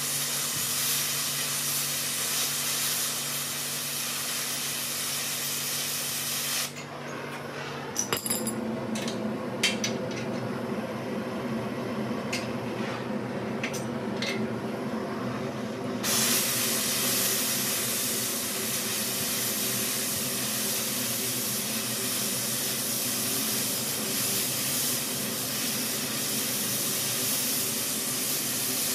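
Oxy-acetylene torch flame hissing steadily as it heats a metal rod for bending. About seven seconds in, the hiss drops away for roughly nine seconds, leaving a few sharp metal clicks and taps, then the torch hiss comes back and holds.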